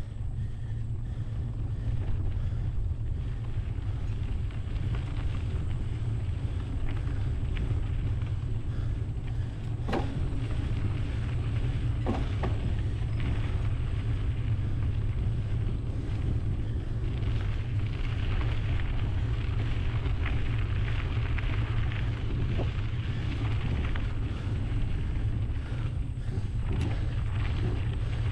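Wind buffeting a GoPro's microphone during a bike ride, a steady low rumble, with a higher hiss that grows from about two-thirds of the way in and a couple of sharp clicks near the middle.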